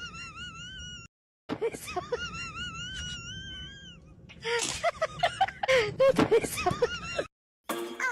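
High-pitched wavering wails and gasps from a person's voice, in several bursts, cut off abruptly twice.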